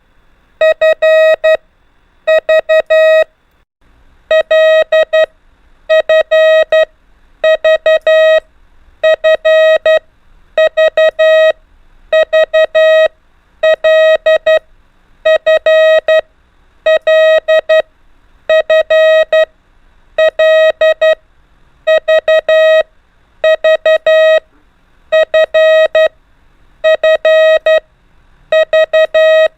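Morse code practice tone, a steady beep near 600 Hz keyed on and off in short dot-and-dash groups, one letter about every second and a half, sending the letters L, F and V over and over.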